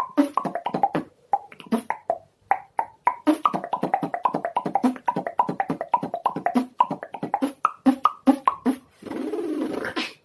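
Beatboxing built from tongue clicks: a fast, rhythmic run of pitched clicks and pops. About nine seconds in it gives way to a sustained breathy, hissing sound lasting about a second.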